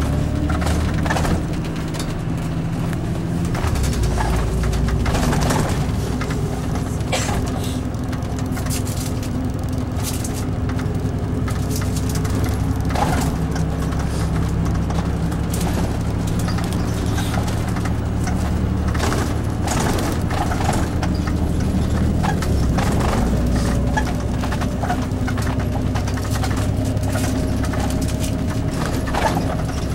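Diesel engine of a Nissan Diesel Space Runner UA city bus heard from inside the cabin, running as the bus moves through city traffic, with frequent rattles and knocks from the body and fittings. A faint whine rises slowly in pitch near the end as the bus gathers speed.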